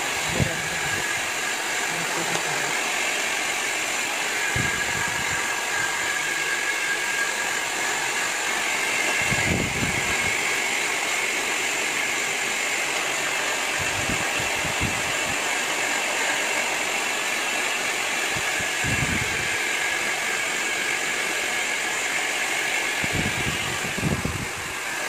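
Handheld hair dryer blowing steadily on wet, freshly bleached hair: a constant rush of air with a thin steady whine. A few low buffets of air come every few seconds as it is moved around.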